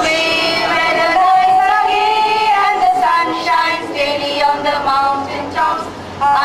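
A group of women singing a Bengali song together in chorus, holding long sustained notes.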